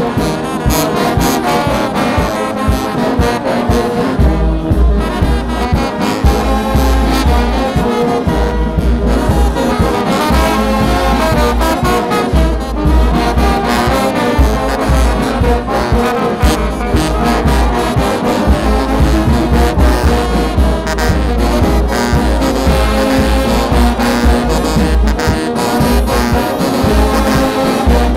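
Brass band music, several horns playing together over a deep, pulsing bass.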